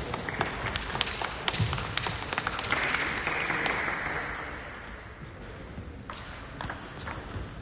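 Celluloid-style plastic table tennis balls clicking irregularly off bats and tables across a sports hall, dense for the first few seconds and sparser later, with a brief hissy noise about three seconds in.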